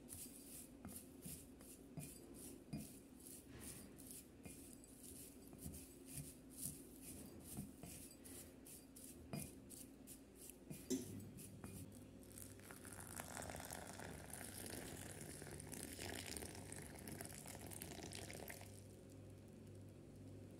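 A wooden spoon stirring dry seeds and herbs in a small glass cup: soft, irregular clicks and scrapes of seeds against the glass. About halfway through, a steady hiss lasting several seconds takes over.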